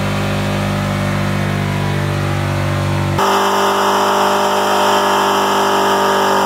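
LS1 V8 in a squarebody Chevy C10 held at high, steady revs during a burnout, with the rear tyres spinning in smoke. The sound changes abruptly about three seconds in.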